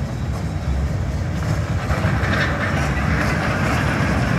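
Children's ride-on amusement train rolling along its steel track, its wheels rumbling and clacking on the rails. The sound grows louder about two seconds in as the train comes past.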